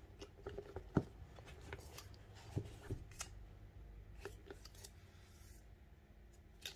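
Faint handling sounds of hardcover journals being picked up and turned over: scattered light clicks and taps of the covers against each other and the tabletop, with soft rubbing.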